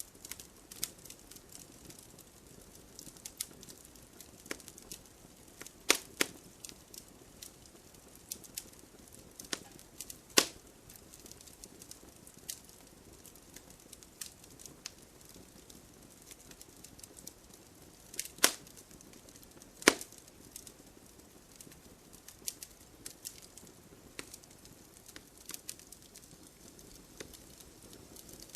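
Wood fire in a fireplace, logs crackling with scattered small snaps and four louder pops, over a faint hiss.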